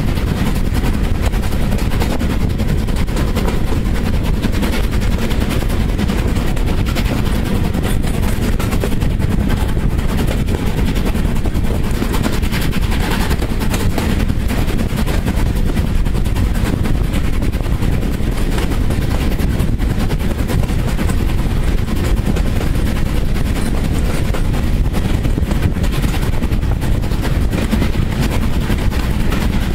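Exhaust beat of an LMS Jubilee class three-cylinder 4-6-0 steam locomotive hauling the train, heard from a carriage behind it: a rapid, unbroken chatter of exhaust beats over a steady rumble.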